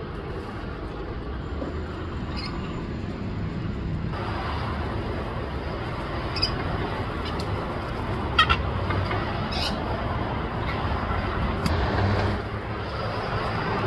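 A steady low rumble like road traffic, with a few brief high chirps or clicks over it, the clearest about halfway through.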